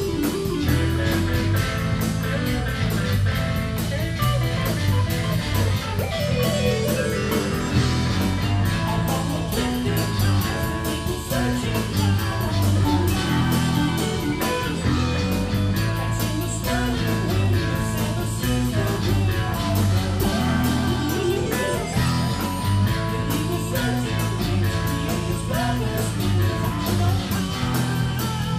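Live rock band playing together: a Ludwig drum kit keeping a steady beat under guitar and keyboards, with a man singing lead into a microphone.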